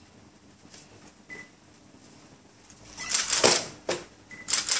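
A baby's cake-covered hands slapping and scraping the plastic tray of a high chair, in two short clattery bursts: one about three seconds in and a shorter one near the end.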